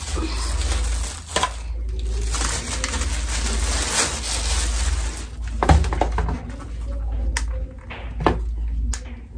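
Packaging rustling and crinkling as a garment steamer is unboxed, followed by a few sharp clicks and knocks in the second half.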